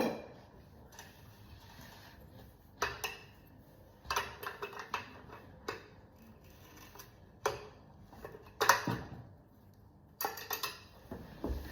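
Irregular metallic clinks and clanks of a spanner and metal parts while a child's bike's front wheel is being fitted, about eight separate knocks, some ringing briefly.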